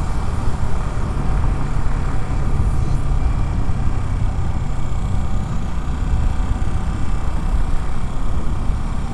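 Yamaha R15's single-cylinder engine running steadily under way, mixed with road and wind noise. The owner says this engine has an unwanted ticking, which he takes for the cam chain on a bike with under 200 km.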